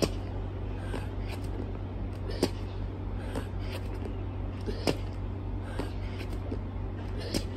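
Burpees on a concrete court: four sharp slaps of hands and sneakers hitting the ground, about two and a half seconds apart, with softer scuffs between them. A steady low hum runs underneath.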